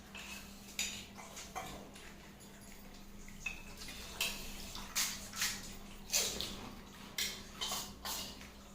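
Close-up eating sounds of fuchka (pani puri): crisp puri shells crunched and chewed wet with their filling of spiced water, in a string of short, irregular bursts.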